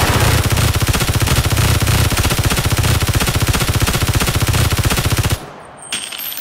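Rapid automatic gunfire: a loud, even rattle of about a dozen shots a second that cuts off suddenly near the end.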